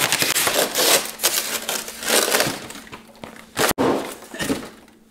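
Large styrofoam packing block being pried apart and lifted off, squeaking and crackling as foam rubs against foam. It is loudest in the first second, then comes in a few shorter scrapes that fade out.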